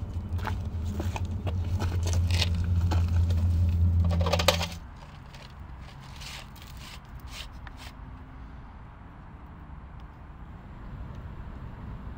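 Crunching steps and small clicks on gravel and rubble over a loud low steady hum; the hum and steps cut off about five seconds in. Then a quieter background with occasional faint clicks of pebbles and debris being shifted.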